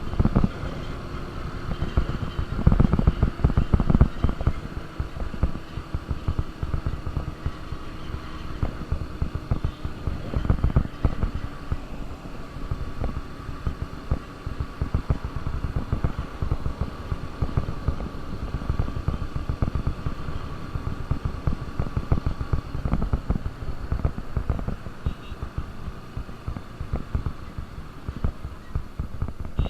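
KTM RC 200 BS6's single-cylinder engine running steadily while the motorcycle is ridden, with a low, uneven rumble under a steady engine tone.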